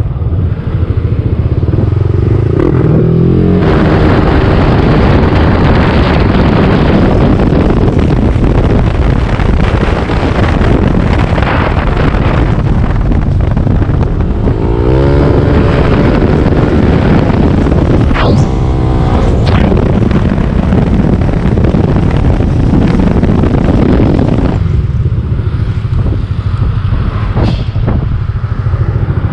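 Yamaha scooter's engine running under way at road speed, with heavy wind buffeting on the microphone. The wind noise eases near the end as the scooter slows.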